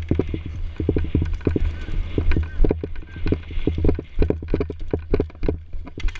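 Running footsteps on grass, heavy even thuds about three a second, picked up by a camera worn on the runner's body.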